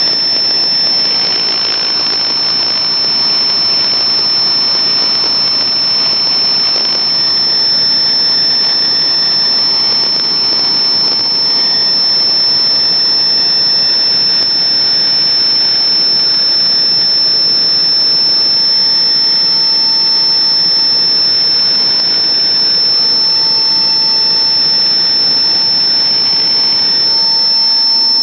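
Helicopter's turbine engines and rotor running, heard from inside the cabin: a loud, steady whine with one constant high tone over a dense rushing noise.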